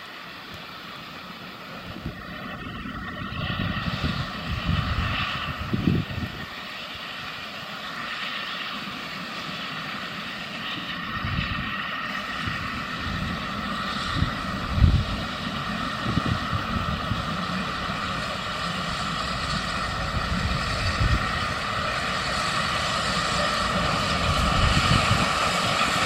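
Small steam locomotive hauling carriages as it approaches, its running and exhaust noise growing steadily louder, with irregular low rumbles along the way.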